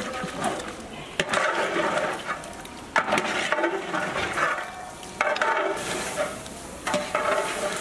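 A long metal ladle stirs and scrapes through sizzling beef curry in a large aluminium pot. Each stroke starts with a sharp scrape about every two seconds, then a stretch of frying hiss.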